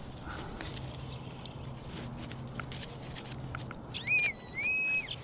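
Faint scuffs and clicks, then about four seconds in an XP Deus metal detector sounds its target tone: a high electronic tone that bends up and down, holds steady for about half a second and drops away, signalling metal under the coil.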